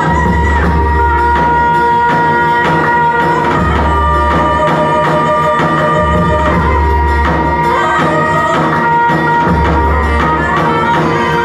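Instrumental tallava music: a keyboard lead holds and bends long notes over a quick, steady drum beat, with no singing.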